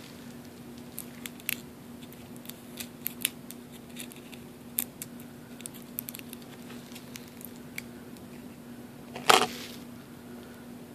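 Fingers handling plastic insect-specimen packaging: scattered small crinkles and ticks, with one louder rustle about nine seconds in, over a steady low hum.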